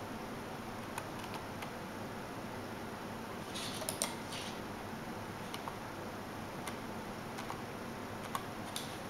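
Occasional computer keyboard key clicks over a steady room hum, with a short cluster of louder clicks about four seconds in.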